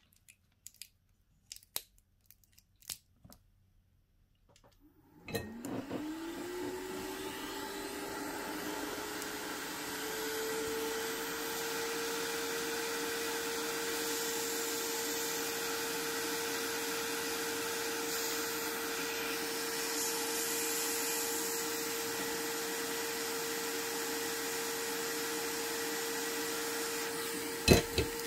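A small electric motor with a rush of air starts about five seconds in, its pitch rising quickly before it settles into a steady hum. A few light clicks come before it, and two sharp clicks sound near the end.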